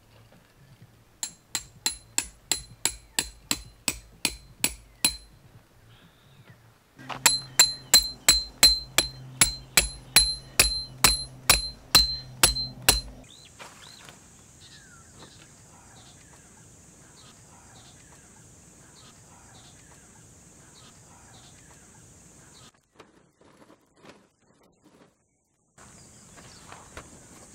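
A hammer striking metal tent stakes: two runs of quick, ringing metallic strikes, about three a second, the second run louder. Then a steady high-pitched drone with faint small clicks and knocks.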